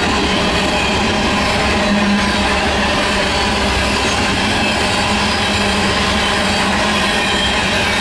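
Freight train cars rolling past close by: a steady, loud rumble and rattle of steel wheels on the rails.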